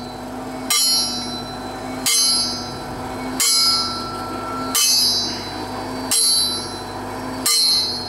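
Drill rig pounding its drill steel down into the ground: six heavy metallic clangs, evenly spaced about a second and a half apart, each ringing on briefly. The rig's engine hums steadily underneath.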